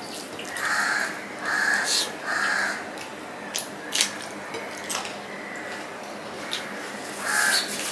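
A crow cawing three times in quick succession and once more near the end. Under it are the wet mouth sounds of someone eating by hand, with chewing and lip-smack clicks.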